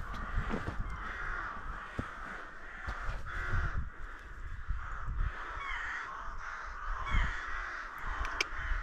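Crows cawing repeatedly, harsh and rasping, over a low rumble.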